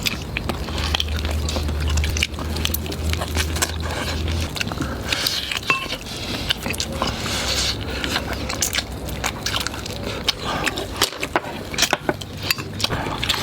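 A person gnawing and chewing braised chicken feet: irregular wet chewing with small crunches and clicks of cartilage and little bones. A low hum runs under the first few seconds.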